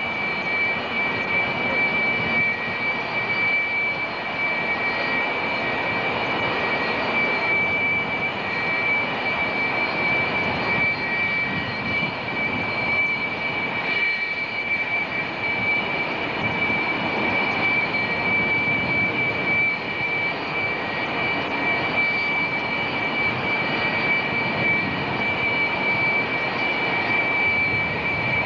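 Jet engines running steadily: a continuous rushing noise with a high, unwavering whine over it.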